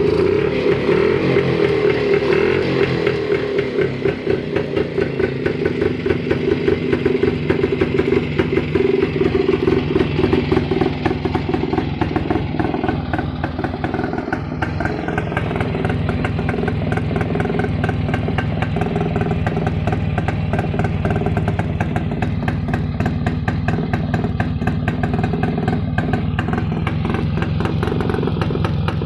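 Rajdoot 175 cc single-cylinder two-stroke motorcycle engine running after restoration, its revs rising and falling briefly through the first half, then settling to a steady run.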